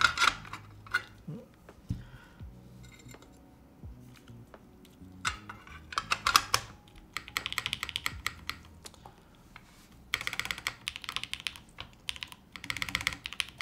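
Typing test on a Martingale custom mechanical keyboard with Gateron Summertime linear switches and GMK keycaps, its top-mount case loosely assembled with the screws taken out. A few scattered key presses and taps come first, then two fast runs of typing, starting about seven seconds in and again about ten seconds in.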